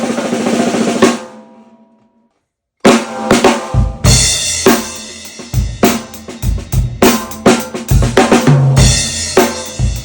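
A 14x8 maple and mahogany stave 10-lug snare drum with its snare wires on, played in a fast roll that rings out. After a brief silence a drum-kit beat starts, the snare over a bass drum and hi-hat.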